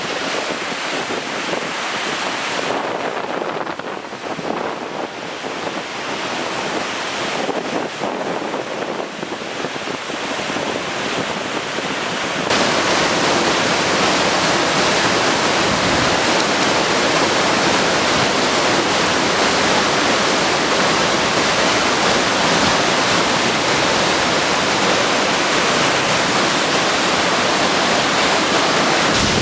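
Steady rushing roar of floodwater, with wind buffeting the microphone. About twelve seconds in the noise jumps suddenly louder and brighter and stays so.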